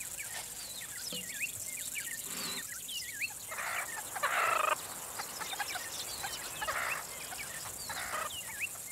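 Small animals calling: many short, high chirps and whistles, several a second, with a few longer, harsher raspy calls in between.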